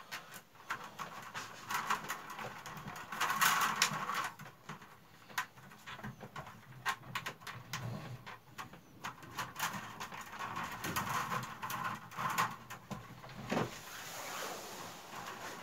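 Split willow strips being woven by hand around the willow stakes of a basket: irregular rustling with many small clicks and snaps of the wood strips.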